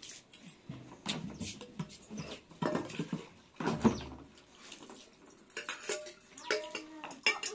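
Water sloshing and splashing in a small metal teapot as it is rinsed and poured out by hand, with clinks and scrapes of the pot, the loudest splash about four seconds in. A small child's voice babbles near the end.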